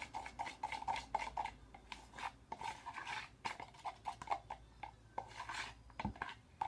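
A spoon stirring white glue and paint in a container, with irregular clicks and scrapes against the container's sides.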